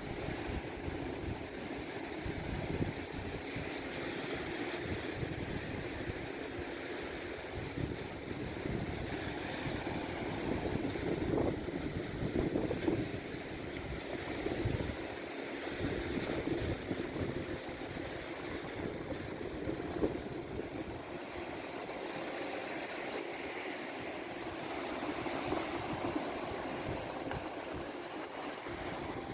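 Wind gusting on the microphone over the steady wash of sea waves on the shore.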